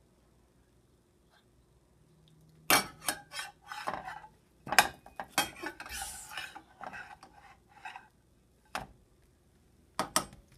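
Metal spatula clacking and scraping against a copper-coloured nonstick frying pan as it works under a pancake to flip it. There is a quiet start, then a quick run of sharp clacks and scrapes from about three seconds in, and two more clacks near the end.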